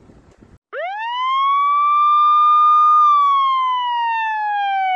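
Wailing siren sound effect. It starts about a second in with a fast rise in pitch, holds high, then slowly falls, and begins rising again at the end.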